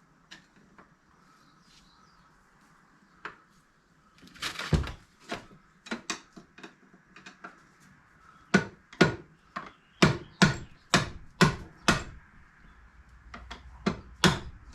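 Hammer blows on a rusted-in pin in the front prop shaft joint of a Polaris Sportsman 570 ATV, working it loose. A few light taps come first, then a cluster of harder knocks, then a run of heavy strikes about two a second, with a few more near the end.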